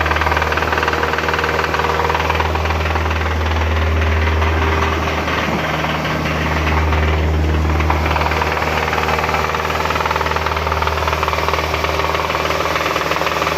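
Hyundai Sonata 2.4 inline-four engine running with a heavy knock, swelling a little twice as it is revved. The mechanic calls the sound terrible and thinks it comes from deeper than the timing chain and valves, from the pistons.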